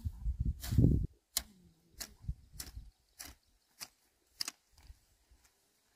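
A hoe blade chopping and scraping through weeds and soil: a low scraping rustle, then a run of sharp clicks, two or three a second, as the blade strikes.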